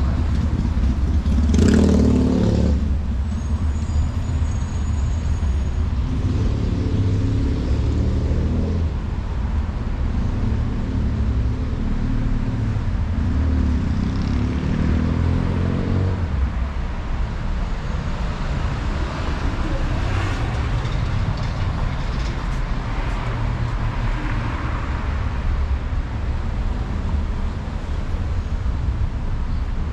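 Street traffic: car and truck engines running and passing over a continuous low rumble, with a louder vehicle sound about two seconds in.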